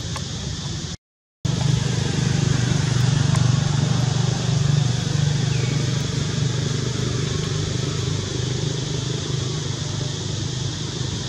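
A steady low engine hum with a steady high hiss over it. About a second in, the sound cuts out completely for under half a second.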